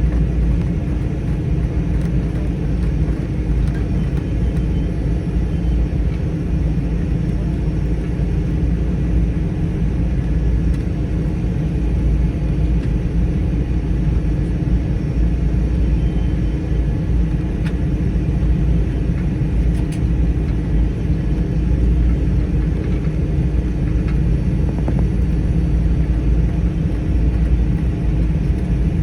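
Cessna 208 Caravan's PT6A turboprop engine running steadily at low power: a constant deep rumble with a faint steady whine above it.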